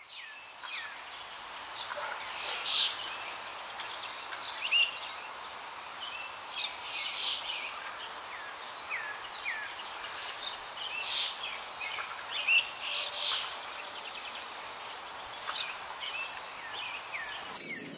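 Birds chirping outdoors: many short high calls and quick falling notes come and go over a steady background hiss.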